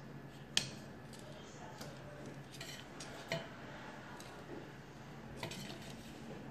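Stainless steel kitchen tongs clinking and tapping against a stainless steel tray as cooked fish are set down on it. The sharpest clink comes about half a second in, with smaller taps through the rest, over a steady low hum.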